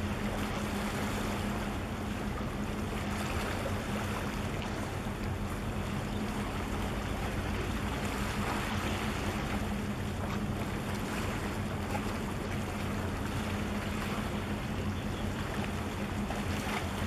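Steady low drone of ship engines, with wind and water washing against the concrete breakwater blocks.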